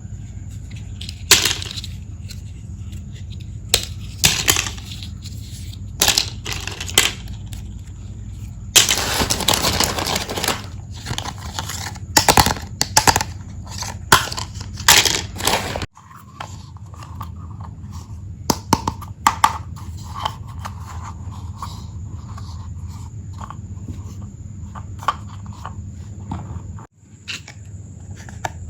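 Small plastic toy tea-set pieces and their packaging being handled: scattered clicks and taps, with a denser stretch of crinkling about nine seconds in, over a steady low hum.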